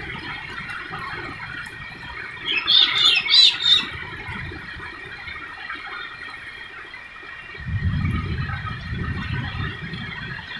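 Heavy rain falling steadily, a constant hiss. About two and a half seconds in, a short run of loud, high-pitched squeals or squawks stands out over it, and later a low rumble joins the rain.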